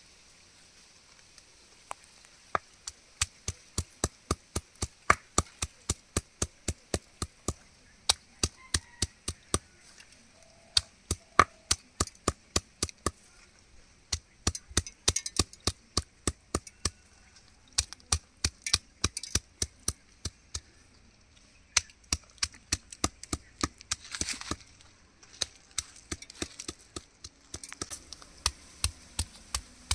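A small club hammer pounding chillies on a flat stone slab: sharp knocks at about two to three a second, in runs broken by a few short pauses.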